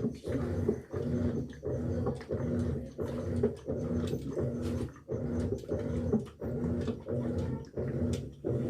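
General Electric washing machine running its wash, its motor humming in an even pulsing rhythm about every two-thirds of a second. It is running properly on a new motor capacitor after the old, swollen one had left it washing without strength.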